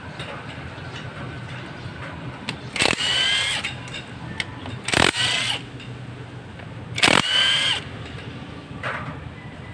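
Cordless power driver spinning out the casing bolts of a Suzuki GD110 motorcycle engine in short bursts, its motor rising in pitch as each burst starts. There are three bursts about two seconds apart and a fainter one near the end.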